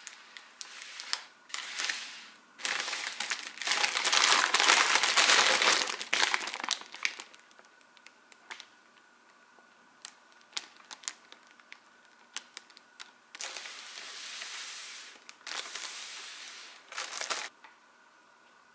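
Paper bakery bag with a plastic window crinkling and rustling as it is handled and opened, loudest a few seconds in, then scattered small rustles and two more bouts of crinkling near the end.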